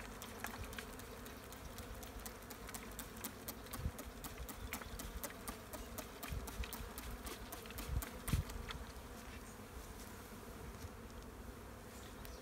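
Honeybees buzzing around an open hive box in a steady hum, with scattered faint clicks and a few low thumps around the middle.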